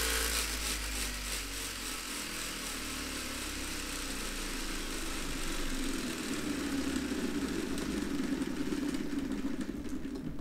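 Lego Technic electric motor spinning a rubber-tyred flywheel through plastic gears: a steady mechanical whir, a little louder in the second half.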